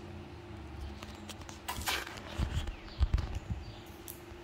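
Scattered knocks and low thumps, the loudest a quick cluster about three seconds in, over a steady low hum.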